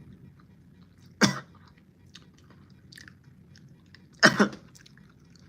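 A person chewing a Bean Boozle jelly bean with small wet clicks, broken by two short, sharp coughs about a second in and again near the end.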